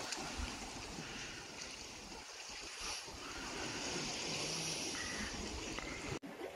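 Steady outdoor ambience of wind and water along a rocky seashore, an even hiss with no clear events, cutting off suddenly near the end.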